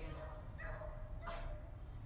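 A dog whining faintly: a thin held whine with a couple of short breathy sounds.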